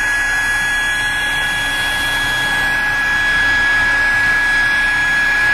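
Electric air mattress pump running steadily, a rushing blower noise with a constant high whine, as it inflates an air mattress.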